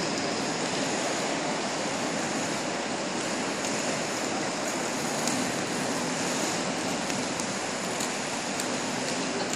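Roller-skate wheels rolling across a hard sports-hall floor: a steady rushing rumble, with a few faint clicks in the second half.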